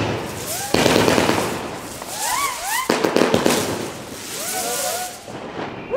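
Fireworks being launched: loud hissing rushes that start suddenly about a second in and again about three seconds in, then fade, with many short whistles rising and falling in pitch.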